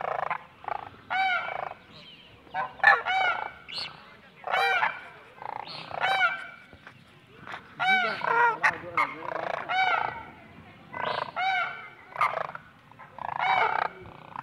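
Caged partridge calling: short runs of clear, ringing notes that rise and fall in pitch, repeated every second or two.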